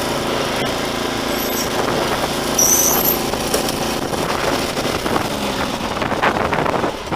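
Riding lawn mower engine running at a steady speed, with a brief high whistle near the middle.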